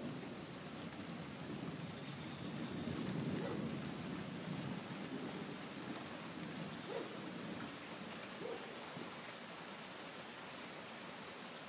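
Steady rain falling, with a low rumble of thunder that swells during the first few seconds and fades out.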